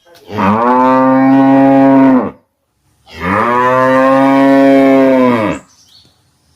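Cow mooing: two long moos, each about two seconds, separated by a short pause. Each rises in pitch at the start, holds steady, then drops away at the end.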